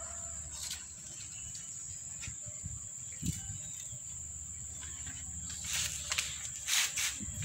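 A steady, high-pitched insect drone over a low outdoor hum, with a few faint knocks and a brief rustling hiss near the end.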